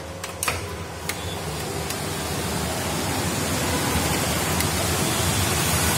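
Heavy rain hissing outside, growing steadily louder as a sliding window is pushed open. A few sharp clicks from the window latch come in the first second.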